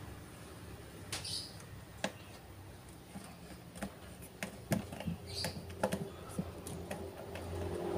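Scattered light clicks and taps of small parts and wires being handled as an RC circuit board is fitted into a miniature truck chassis, over a low steady hum.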